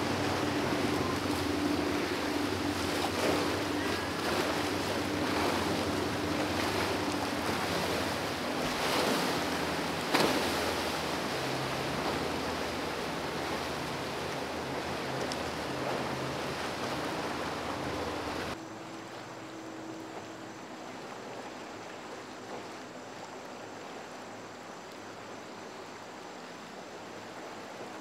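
Rough, choppy water rushing and splashing, with an outboard boat motor running steadily under it and wind buffeting the microphone; there is a single sudden thump about ten seconds in. About eighteen seconds in the sound drops abruptly to a quieter, duller wash of water and a distant motor.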